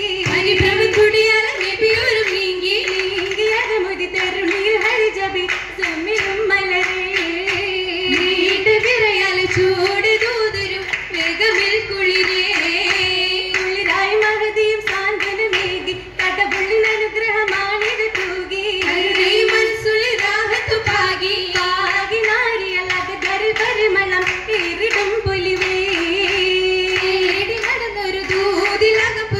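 Oppana song sung in chorus by a group of girls, a wavering, continuous melody, with rhythmic group hand clapping throughout.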